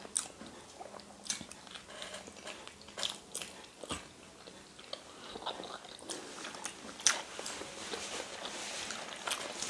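Two people biting into peeled boiled eggs and chewing, close to the microphone, with scattered short mouth clicks throughout.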